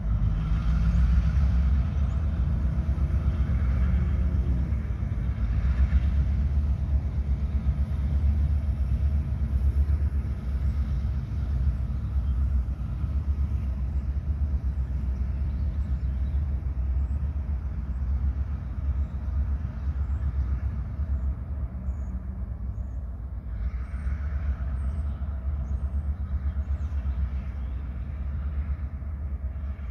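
Steady low rumble of a distant diesel locomotive, with cars passing on the road near the start and again near the end.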